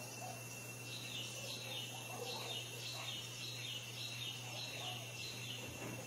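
A bird repeating a short, high, falling call note about twice a second, starting about a second in and stopping shortly before the end, over a steady high-pitched tone and a low hum.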